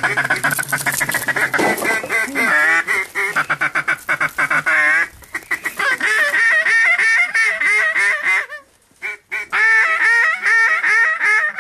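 Loud, continuous waterfowl calling: goose-like honks and duck quacks in rapid runs, briefly dropping out about three-quarters of the way through, then stopping abruptly near the end.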